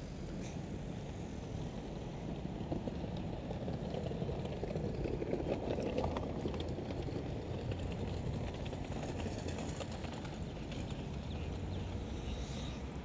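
Outdoor street ambience: a steady low rumble of wind and distant traffic, with faint cicadas buzzing above it.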